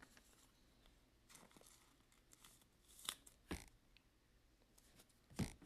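Near silence, broken by a few faint short clicks and rustles of a trading card being handled, about three seconds in and again near the end.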